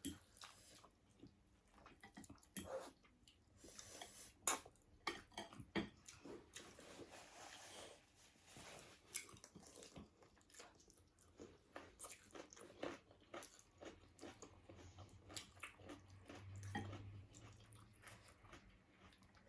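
Faint chewing and biting sounds of people eating a meal, with many small scattered clicks and knocks.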